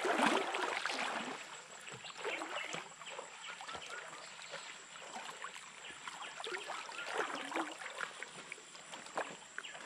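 Stream water sloshing and splashing as someone wades through it: an irregular run of small splashes, loudest in the first second.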